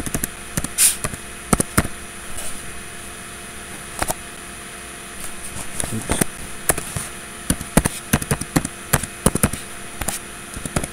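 Computer keyboard keys clicking as a password is typed, in uneven runs with a lull of a couple of seconds early on. A steady hum sits underneath.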